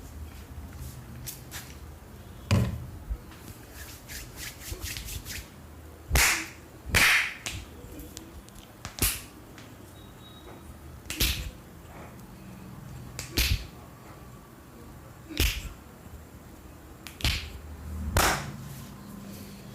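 Sharp cracks and snaps from a barber's head and upper-body massage, about nine of them, roughly one every two seconds, with fainter small clicks in the first few seconds.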